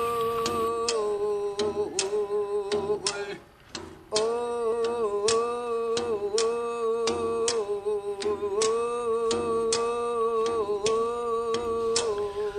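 Wordless humming held on one steady note with slight wavers in pitch, over a regular ticking beat. It breaks off briefly about three and a half seconds in, then resumes.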